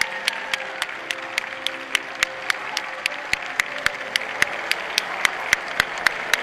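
Audience clapping in unison to a steady beat, about four claps a second, as a dog is gaited around the show ring.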